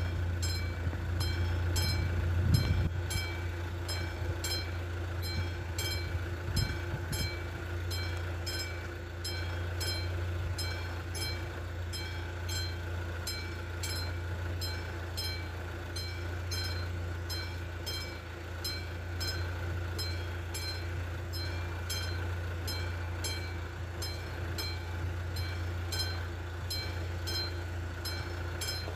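Railway level-crossing warning bell ringing in even strikes, roughly twice a second: the crossing is closed for an approaching train. A steady low hum runs underneath.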